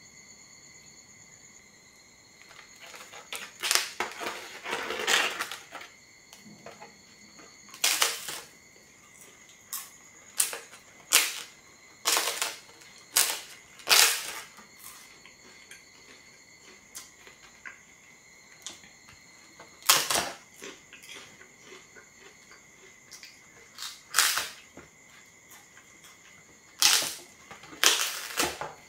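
Thin, crisp flatbread crunching and cracking as it is broken and chewed, in about a dozen sharp crackling bursts, some coming in quick runs, with quiet gaps between.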